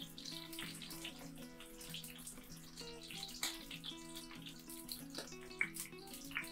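Background music over a steady light sizzle of bell pepper pieces frying in hot oil, with scattered small clicks of a spoon against the bowl and pan.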